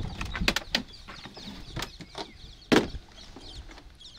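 A string of sharp clicks and knocks from medical equipment, a syringe and vials, being handled at a vehicle's open boot, with the loudest knock about three seconds in.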